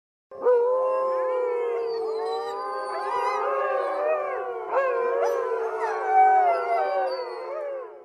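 Several gray wolves howling together in chorus: overlapping long howls at different pitches that glide up and down. The chorus starts abruptly and cuts off near the end.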